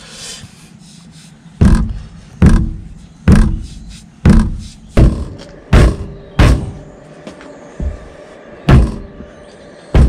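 Sledgehammer striking the tyre of a Saab 9-5's rear wheel, about nine heavy blows a little under a second apart, with a weaker blow and a short pause before the last. The blows are knocking loose a wheel seized on the hub.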